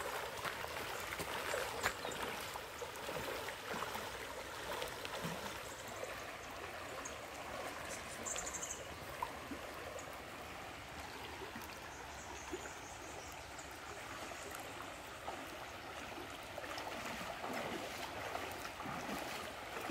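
Shallow river water running over a concrete ford: a steady rushing of flowing water.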